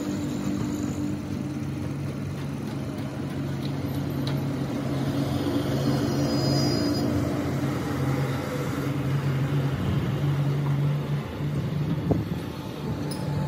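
Steady low hum of a running machine, with a single sharp knock about twelve seconds in.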